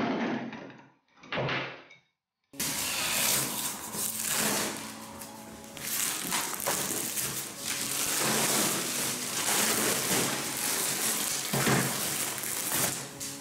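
A cordless drill runs in two short bursts, driving screws. After a cut comes a long, loud stretch of irregular handling noise with knocks and scrapes.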